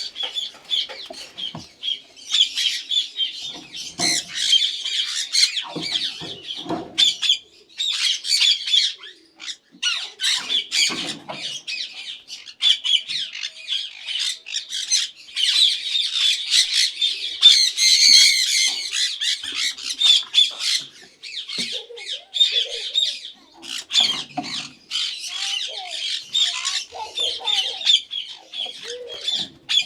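A flock of Indian ringneck parakeets squawking, many harsh, high calls overlapping almost without a break.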